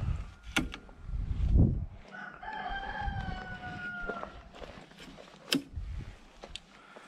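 A rooster crows once, a single call lasting about two seconds, starting about two and a half seconds in. Before it come close heavy thumps and rustling, the loudest sounds. Sharp clicks come before and after the crow.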